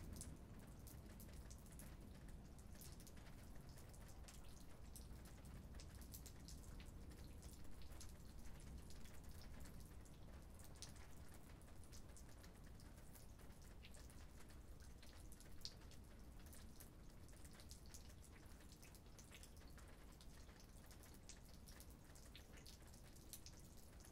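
Light rain: sparse, faint raindrop ticks landing at irregular intervals.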